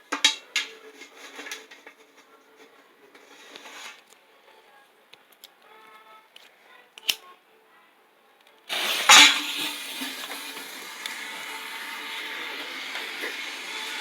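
Faint scattered clicks and knocks, then near quiet with one sharp click. About nine seconds in, a sudden loud burst turns into a steady hiss, like a lit firework spraying.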